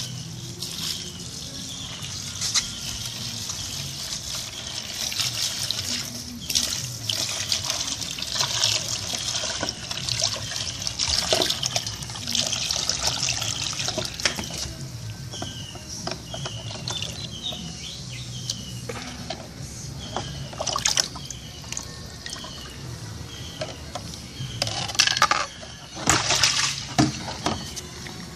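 Ferric chloride etchant sloshing and washing back and forth in a plastic basin as it is rocked to etch copper circuit boards, with a few louder splashes and knocks near the end.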